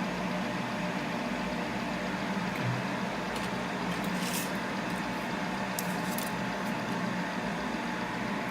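Steady whir and hum of the laser separating machine's fans running, with a few faint light clicks.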